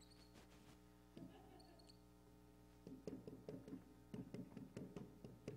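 Faint squeaking of a marker drawn across a whiteboard: one longer stroke about a second in, then quick short strokes, several a second, from about three seconds in, over a low steady electrical hum.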